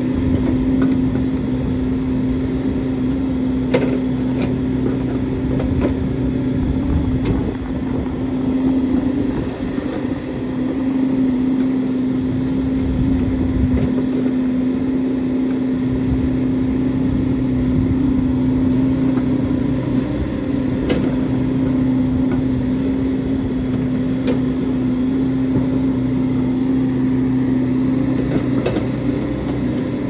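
Backhoe's diesel engine running steadily with an even hum, with a few sharp knocks along the way.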